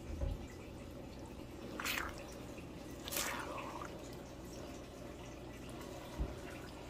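Thick stir-fry sauce in a wok being stirred with a silicone spatula: a few short, wet squelches, spaced a second or more apart, over a steady low hum.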